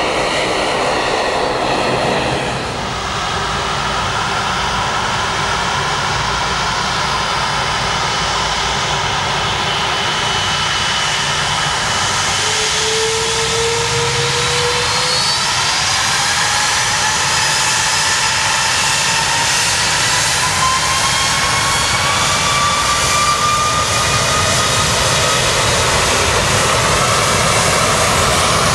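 Airbus A330-200 jet engines spooling up for takeoff: a rushing jet roar with several whining tones that climb steadily in pitch through the second half. At the start, a departing airliner's jet noise is heard briefly before it cuts off about two and a half seconds in.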